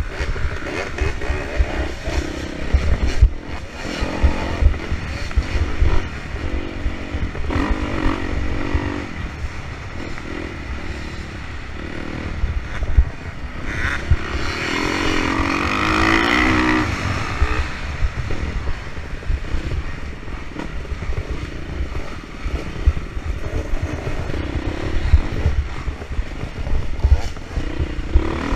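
Dirt bike engine revving up and down as the bike is ridden hard over rough ground, heard from a camera mounted on the bike, with heavy thumping and buffeting under it. About halfway through the engine is held at higher revs for a few seconds.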